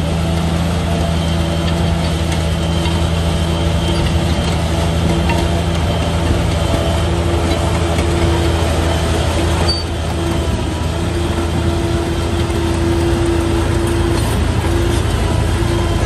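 D20P bulldozer's diesel engine running steadily, a deep drone with a higher whine that comes and goes.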